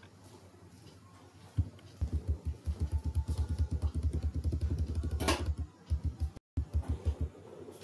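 Computer keyboard keys tapped in quick succession, several a second, starting about two seconds in, with a short break and a few more taps near the end: a step key being pressed over and over to walk through code in a debugger.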